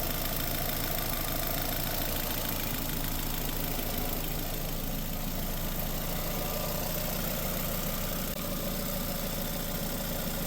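The 2006 Nissan Sentra's 1.8 L four-cylinder engine idling steadily while its cooling system is being burped of air after a water pump replacement.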